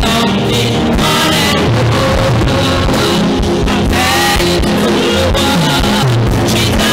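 A woman singing a gospel praise song into a microphone over a live band with guitar and drums, heard through the church sound system.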